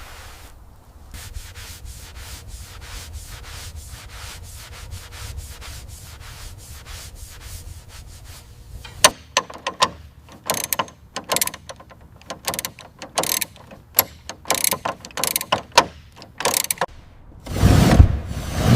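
Workshop hand-tool sounds: fast, even rubbing strokes like sanding. About halfway they give way to louder, irregular sharp clicks like a ratchet. A loud, low burst of sound comes near the end.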